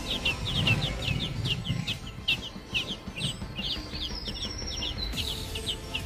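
Songbird nestlings begging for food at the nest while a parent feeds them. A rapid string of short, high, downward-slurred chirps runs about three to four a second, with a few longer thin whistles mixed in.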